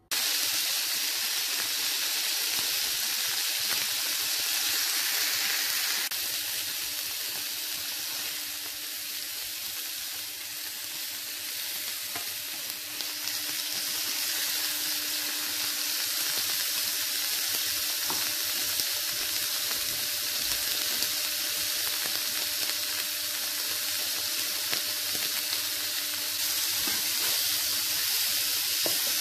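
Veal steak pieces searing in hot oil in a nonstick frying pan: a steady sizzle, with a faint steady hum underneath.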